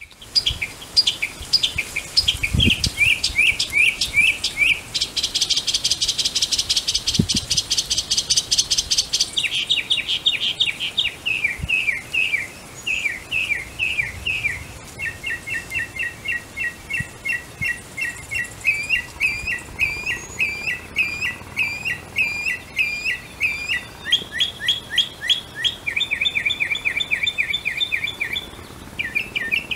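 Mockingbird singing a continuous string of varied phrases, each repeated several times before switching to the next. About five seconds in, one phrase turns into a harsh, rapid rattle.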